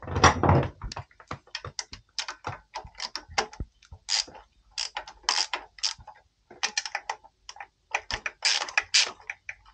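Ratchet wrench clicking in irregular runs, with metal clanks of the socket on the bolts, as the mounting bolts of the diesel's fuel injection pump are undone.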